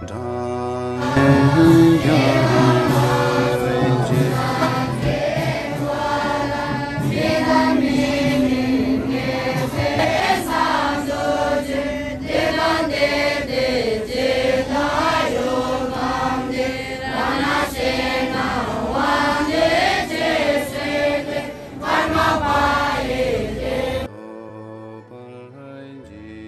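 Many young Tibetan Buddhist monks chanting prayers together from their prayer texts, in a loud, rising and falling group chant. Near the end it cuts to quieter music of held notes.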